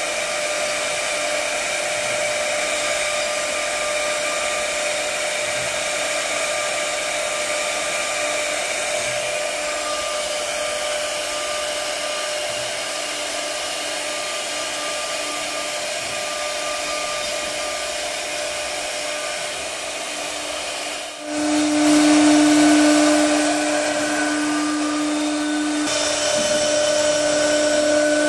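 CNC router spindle running steadily with a high whine as it carves a wooden pillar turned on the machine's rotary axis. About 21 s in the sound cuts to a louder, lower, steady whine of a spindle cutting wood.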